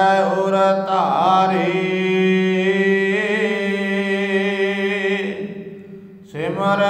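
A male voice chanting Gurbani in long, slowly gliding held notes, the melodic recitation of the hukamnama, over a steady low drone. The voice breaks off for about a second near the end and then resumes.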